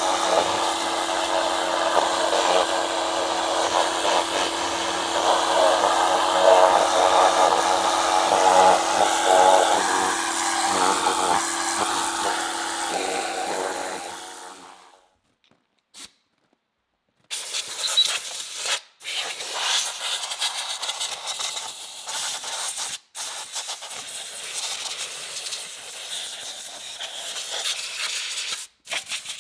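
Pressure washer running, its motor humming steadily under the hiss of the wand spraying water onto a metal milling machine part; it fades out about halfway through. After a short silence, a hand-held hose nozzle hisses in on-and-off bursts.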